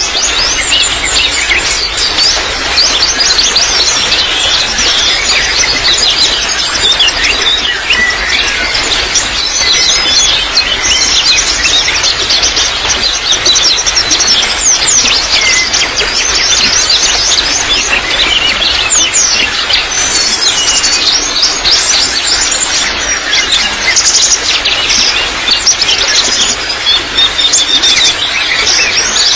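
Many small birds chirping and twittering in quick, dense, overlapping calls over a steady trickle of running water.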